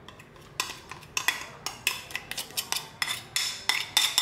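A metal spoon clinking and scraping against a metal baking tray as it spreads chocolate glaze over a cake: a quick run of light clinks, about four or five a second, starting about half a second in.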